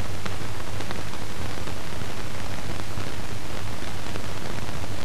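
Steady hiss and low hum of an old film soundtrack, with a few faint crackling clicks, and no other sound.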